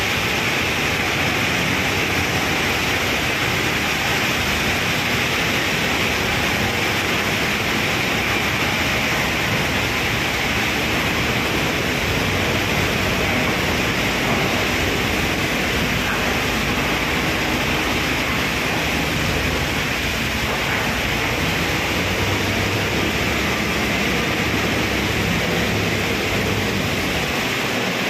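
Wagon tippler dumping a loaded railway coal wagon: coal pouring out of the upended wagon into the hopper makes a steady rushing noise. A low motor hum comes in near the end.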